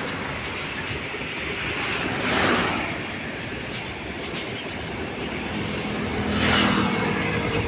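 Freight train of covered goods wagons rolling past, a steady rumble of steel wheels on the rails that grows louder twice, about two and a half and six and a half seconds in.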